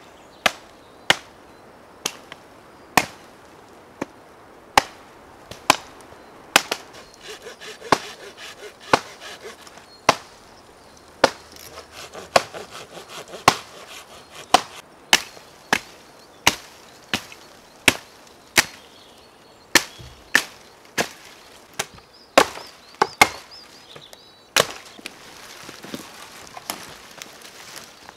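Hatchet chopping the branches of a dead, dry conifer: sharp wooden chops at an uneven pace, roughly one a second and now and then two in quick succession. Dry twigs crackle and rustle between the blows in the middle stretch.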